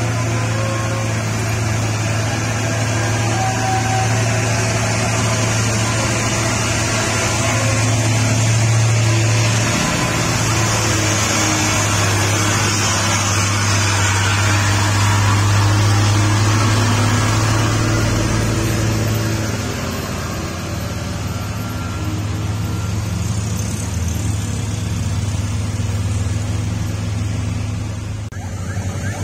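Diesel engine of a heavy flatbed truck carrying a crawler excavator, running in a steady low drone as the loaded truck crawls around a steep hairpin bend.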